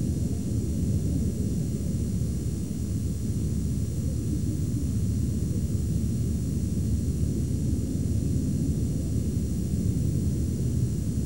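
Steady low rumble of road and engine noise from a car driving along, heard from inside the car.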